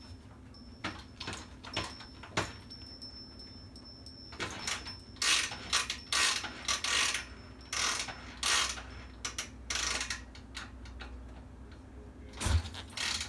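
A 1967 Triumph motorcycle being kick-started again and again: clunks and ratcheting of the kick-start mechanism as the engine is turned over, without catching.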